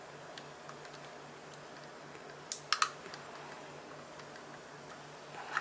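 Light clicks and taps of plastic and resin model-kit parts being handled, with three sharper clicks close together about halfway through.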